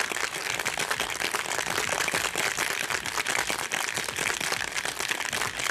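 Ice rattling inside a traditional three-piece metal cocktail shaker shaken hard and fast, a dense rapid clatter, chilling and mixing the drink.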